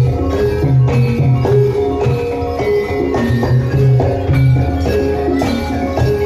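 Javanese gamelan music for a jaran kepang dance: metal keyed and gong instruments strike a repeating melody over steady drum beats.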